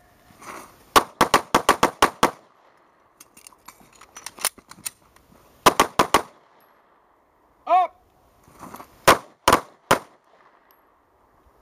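Two 9mm semi-automatic pistols, a Smith & Wesson M&P9 and a Glock 19, fired by two shooters at once in a speed-and-precision drill: a rapid string of about nine shots about a second in, a quick burst of four near the middle, then three shots spaced about half a second apart near the end.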